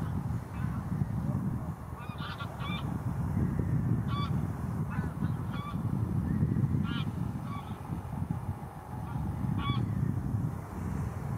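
Waterbirds calling: short, sharp pitched calls in small groups of two or three, over steady wind buffeting the microphone.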